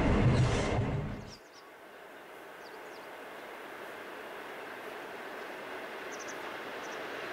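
Diesel-hauled passenger train running, its noise cutting off sharply about a second and a half in. A much quieter steady rumble and hiss of a train then follows, slowly growing louder, with a few faint high squeaks.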